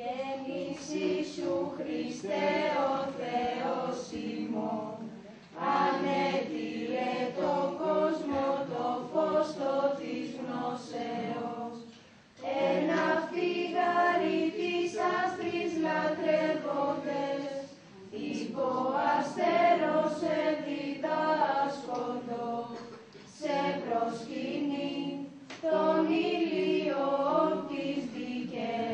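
A group of voices singing a song together, in phrases that break off briefly about every six seconds.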